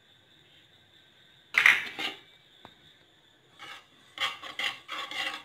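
A steel spoon scraping and stirring sesame seeds around a dry metal kadai, in quick repeated strokes from about four seconds in: dry-roasting the seeds. A loud metallic clatter about a second and a half in.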